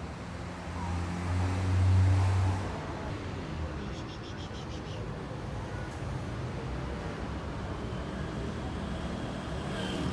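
Road traffic: a vehicle passes close with a low rumble that swells and fades about two seconds in, then a steady background traffic hum.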